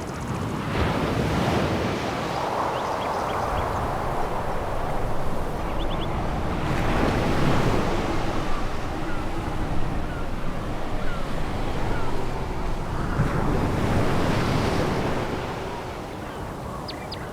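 Sea waves breaking and washing back over a pebble beach. The surf swells and eases about every six seconds, with a few faint clicks of stones.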